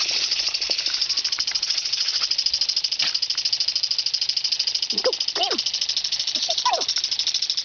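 Pop-up lawn sprinkler spraying: a steady, loud hiss of water with a fast, even pulsing rattle.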